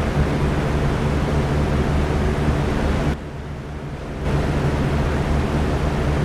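Electric fan running steadily: a constant whooshing rush of air over a low motor hum. About three seconds in it dips quieter and duller for about a second, then returns to full level.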